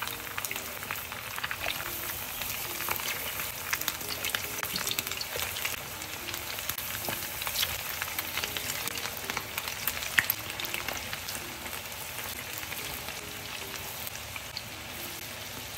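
Cornstarch-coated pork ribs deep-frying in hot canola oil, a steady sizzle full of small crackling pops as the pieces are lowered in one at a time. One sharper pop comes about ten seconds in.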